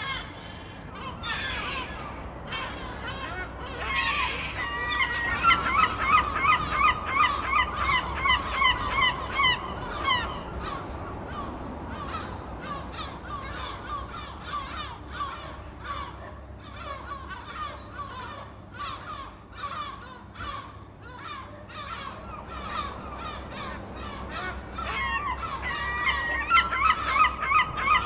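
A flock of gulls squawking, with many overlapping calls. Dense runs of rapid repeated calls come about five seconds in and again near the end, and scattered calls fill the middle. A low steady rumble runs underneath.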